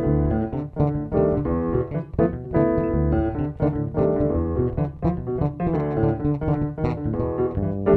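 Grand piano and electric bass guitar playing jazz together, a dense, unbroken stream of notes over a strong bass line.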